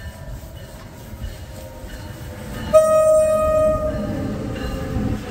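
NJ Transit ALP-46A electric locomotive 4640 sounding one short horn blast, about a second long, a little under three seconds in, as it pulls alongside the platform. The rumble of the train rolling in grows as the locomotive passes.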